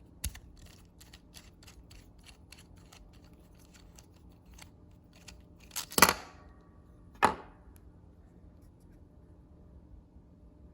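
Small plastic clicks and knocks of a GoPro Hero 8 Black being unscrewed and lifted off its plastic packaging mount: a run of faint ticks, then two louder plastic clacks about six and seven seconds in.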